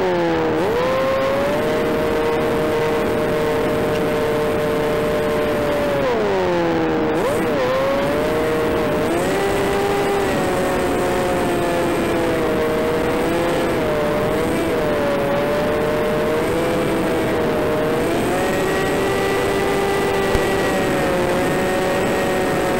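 Electric motor and propeller of an AR600 flying wing whining steadily in flight over rushing air. The pitch drops and recovers right at the start, drops deeper about six to seven seconds in, and climbs again a little later as motor speed changes.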